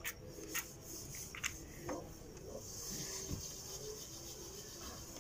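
A small packet crinkling and clicking as it is handled and opened, with a few light taps. A faint steady hiss comes in about three seconds in.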